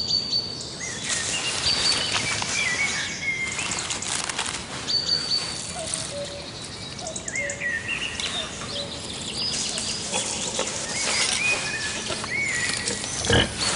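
Forest birdsong: several birds chirping and whistling in short, repeated calls over a light background hiss.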